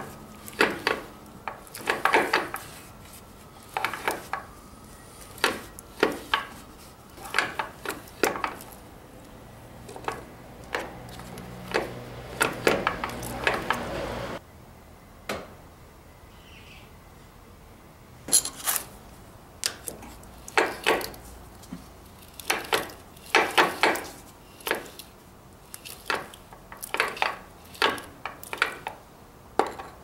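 Metal clinking and clattering of pliers handling the oily roller chain and sprockets in a wing harrow's chain case, in irregular clusters of sharp taps and rattles.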